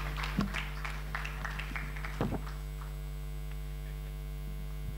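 Steady electrical mains hum through a live PA microphone. A few scattered claps and knocks sound over the first couple of seconds as the microphone is handed over, then stop.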